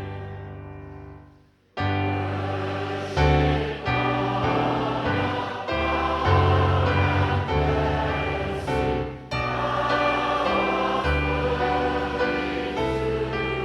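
A choir singing a hymn with accompaniment. A held chord dies away to a brief silence about a second and a half in, then the music starts again with sustained chords.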